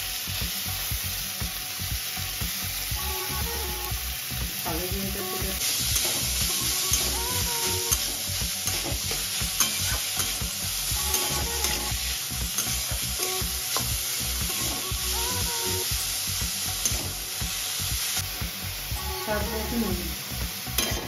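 Grated roasted radish sizzling in hot mustard oil in a wok, stirred and scraped steadily with a metal spatula.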